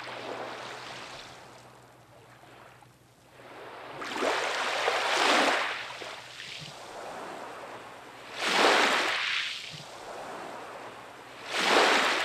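Small sea waves washing up onto a pebble beach, each surge swelling and falling back, about every three to four seconds.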